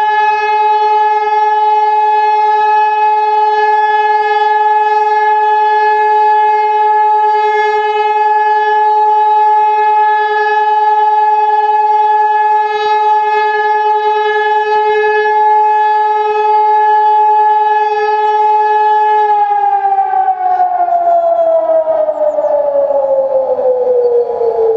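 Hörmann ECN 2400 electronic siren, a 2400-watt unit with a three-row horn array, holding a loud steady tone: the one-minute continuous all-clear (Entwarnung) signal. About nineteen seconds in, the pitch starts sliding steadily down as the tone winds down.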